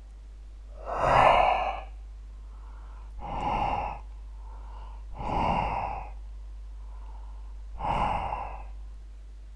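A cat hissing four times, each hiss about a second long and a couple of seconds apart, over a low steady hum: a defensive mother cat's warning.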